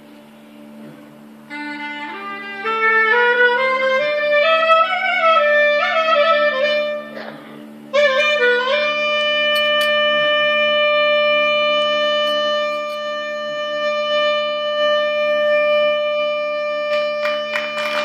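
A Turkish classical music ensemble playing in makam Hicaz: a single melodic line climbs step by step over a steady low drone, bends around a note about eight seconds in, then holds one long high note through the second half.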